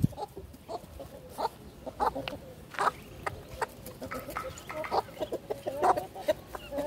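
Domestic hens clucking: a run of short, irregular clucks.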